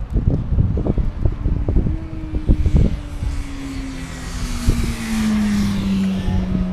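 A passing vehicle's engine drone, its pitch falling slowly as it goes by, over wind buffeting and rumble on the microphone.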